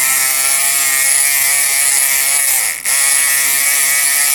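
Kronos electric lock pick by Multipick running in a lock. It gives a steady, loud, high-pitched buzz, which sags in pitch for a moment about three seconds in and then picks back up.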